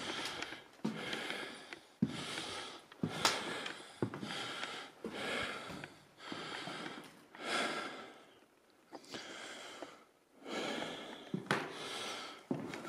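A person breathing heavily close to the microphone, roughly one breath a second with a couple of brief pauses, and a few sharp knocks among the breaths.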